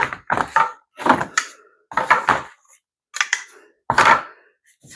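Hard plastic pool-ladder parts being handled and set down, making about six short clattering knocks roughly a second apart.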